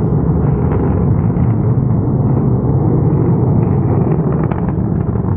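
Long March 3C rocket's engines heard during ascent: a loud, steady low rumble, with some crackling in the second half.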